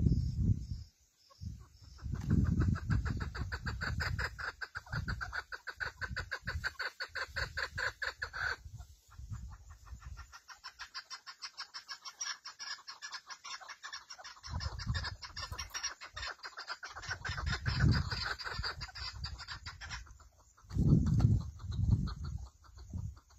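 Female partridge calling in long runs of rapid, evenly repeated clucking notes, stopping near the end; this is the hen call hunters use to draw in males. Bursts of low rumbling noise come and go under the calls.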